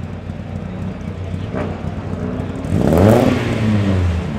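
De Tomaso Pantera's Ford 351 Cleveland V8 idling, then blipped once near the three-second mark: the revs climb quickly and fall back toward idle over about a second.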